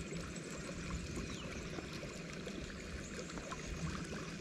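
Quiet flowing and trickling of river water around a drift boat, with faint ticking throughout.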